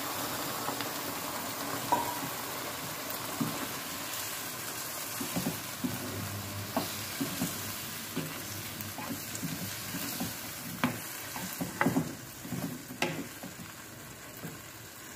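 Vegetable Manchurian balls and their sauce sizzling in a nonstick pan as they are stirred with a spatula, a steady hiss of frying with scattered clicks and scrapes of the spatula against the pan, which come more often in the second half.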